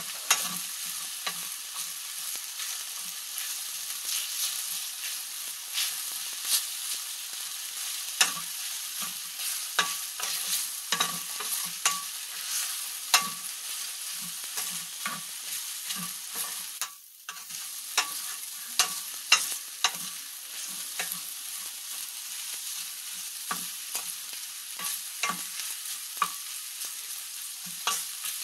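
Chicken breast and vegetables sizzling in oil in a stainless steel pan, stirred with a wooden spatula that knocks and scrapes against the pan at an irregular pace. The sizzle drops out briefly once, about two-thirds of the way through.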